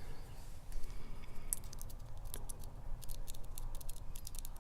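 Light metallic clicks and ticks of small tools working inside a disassembled padlock, fishing for a pin that has not come out of its chamber. The clicks come in quick irregular runs, thickest in the second half.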